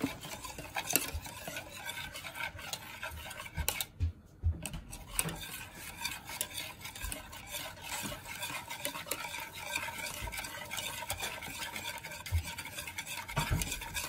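Wire whisk beating milk and egg in a bowl: a rapid, continuous clatter of the wires against the bowl, with a short break about four seconds in.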